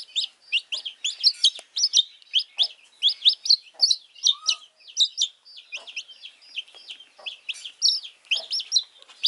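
Wet baby chicken chick peeping loudly and without pause, several short high-pitched peeps a second, typical of a chilled, distressed chick.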